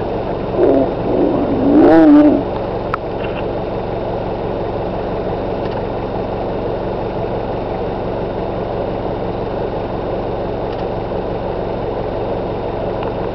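Lions snarling and growling as mating ends, a few harsh calls in the first two seconds, loudest about two seconds in. A vehicle engine idles steadily underneath.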